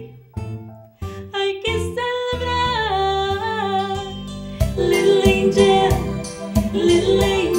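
Woman singing into a microphone over instrumental accompaniment. The music drops out almost to nothing just after the start, then her voice returns with sliding, held notes, and a beat comes back in about halfway through.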